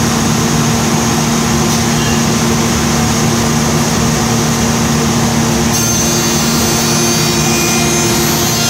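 Unique 2722 CNC machining center running its spindles steadily while the cutter works an ogee (OG) profile into an oak rail. A higher-pitched cutting whine joins about six seconds in and stops near the end.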